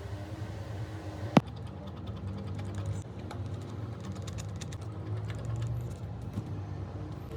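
Small tools and parts clicking against an iPhone 4 being taken apart: one sharp click about a second and a half in, then a scatter of light ticks, over a steady low hum.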